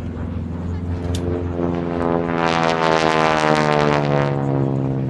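Propeller airplane's engine passing close by during an aerobatic display, swelling to its loudest around the middle and dropping slightly in pitch as it goes past.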